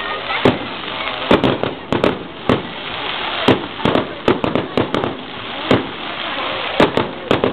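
Aerial firework shells bursting in a rapid, irregular run of sharp bangs, some in quick pairs, over a steady background hiss.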